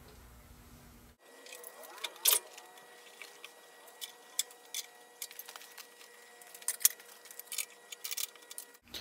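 Light metallic clinks and taps, irregular and scattered, from the computer arm's steel clamp bracket and pipe as the arm is handled and swung around on its upright; the loudest clink comes about two seconds in.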